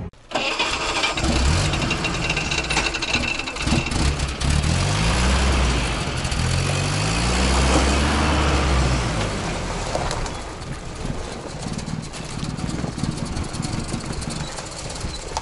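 UAZ van's engine running under load as it reverses a boat trailer into the water, revving up with a rising pitch from about five to nine seconds in, then running more unevenly.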